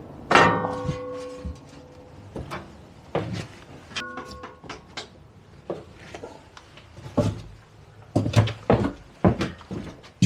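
A boat door being taken off and handled: a loud clang about half a second in that rings on for about a second, then scattered knocks and clunks, with a run of louder knocks near the end.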